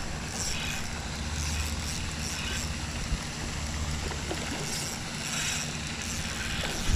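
Steady outdoor background noise: a low wind rumble on the microphone, with a faint, even hiss over it.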